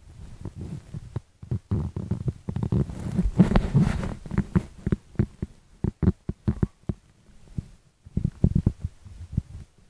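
Handling noise from a phone held right up against the face: irregular low thumps and rubbing as fingers and skin knock against the microphone.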